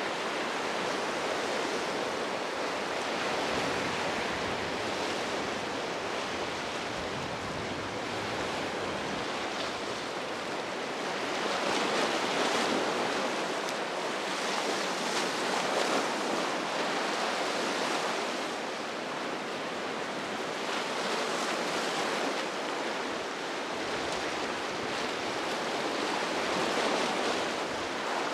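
Ocean surf: waves breaking and washing, the rush swelling louder several times.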